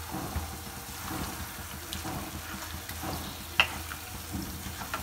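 Yogurt-marinated chicken in herb paste sizzling in hot oil with onions in a frying pan as it is stirred with a spatula. There are a few light scrapes and one sharp click about three and a half seconds in.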